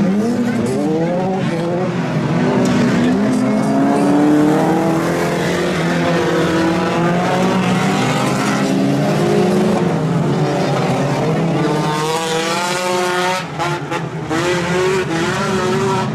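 Several autocross race cars' engines revving hard together, their pitches climbing and falling as the drivers shift and lift through the corners, with a brief lull near the end.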